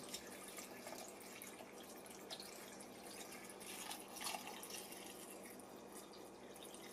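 Liquid being poured into a blender pitcher over chopped vegetables: faint trickling with a few small splashes.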